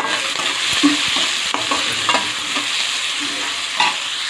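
Sliced onions sizzling in hot oil in a metal kadai, stirred with a metal spatula that scrapes and clicks against the pan now and then.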